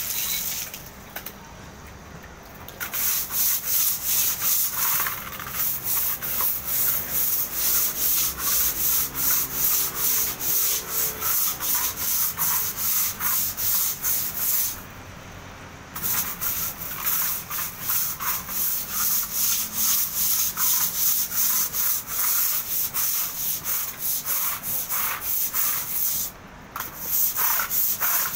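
Stiff-bristled scrub brush on a long handle scrubbing wet ceramic wall tiles in quick back-and-forth strokes, with a few short pauses.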